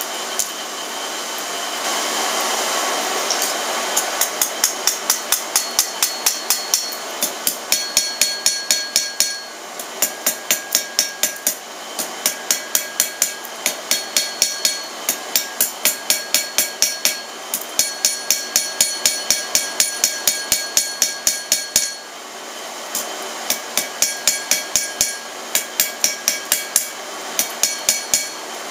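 Hand hammer striking hot steel bar stock on an anvil, about three blows a second in runs of several seconds with short breaks, each blow leaving a clear anvil ring: the tip of the bar is being drawn out flat after a fresh heat. A few seconds of steady rushing noise come before the first blows.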